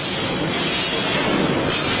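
Assembly-line chain conveyor running, its blue roller chains carrying a metal fixture pallet, heard as a steady, even mechanical noise.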